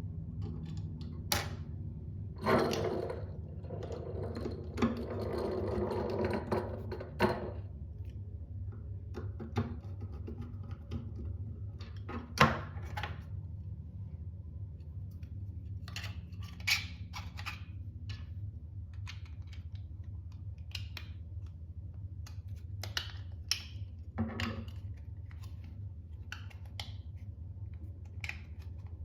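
Scattered clicks and knocks of small 3D-printed plastic parts being handled and fitted together, with a stretch of rustling about two to seven seconds in, over a steady low hum.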